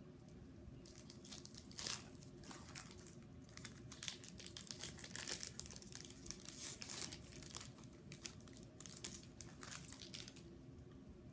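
Foil booster-pack wrapper crinkling and tearing as a Pokémon card pack is opened, in irregular bursts from about a second in until near the end.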